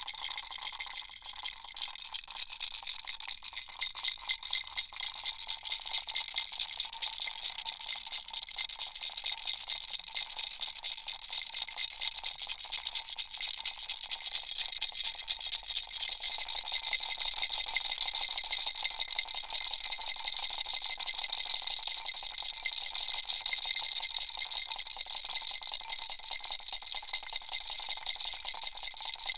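Baby rattle toy shaken steadily, its beads rattling in a quick, even rhythm with a faint ringing tone under the rattle.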